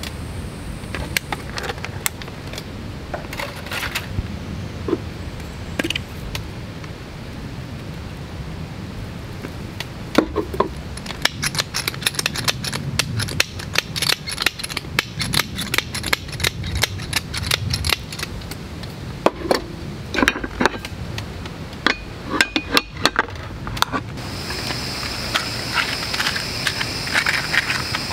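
Hand pepper mill grinding coarse pepper, a rapid run of sharp ratcheting clicks starting about ten seconds in and a second run a little later; before that a few light knocks of food being set into a cast-iron pan. A steady high hum comes in near the end.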